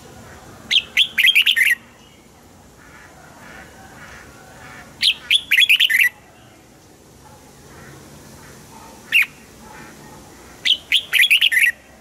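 Red-whiskered bulbul singing: three short, loud phrases of quick whistled notes, about five seconds apart, with a single falling call note between the second and third.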